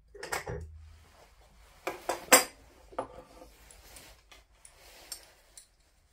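Metal clinks and knocks as the ignition advance-retard lever and its cable are picked up and handled at the workbench. There are a few sharp clinks, the loudest about two seconds in, then lighter rustling.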